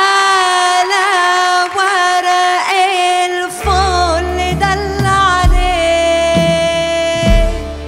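A woman sings an Egyptian folk song, holding one long note with vibrato and turns. About halfway a low steady accompaniment comes in under her, with deep frame-drum strokes twice near the end.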